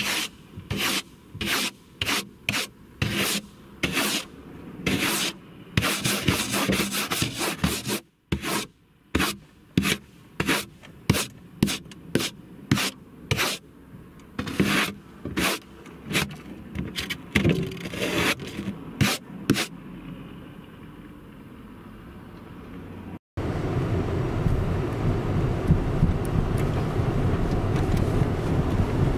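Ice being scraped off a frosted car windshield in quick, irregular strokes, heard from inside the car. After a sudden cut near the end, there is steady engine and tyre noise from the cabin as the car drives on a snowy road.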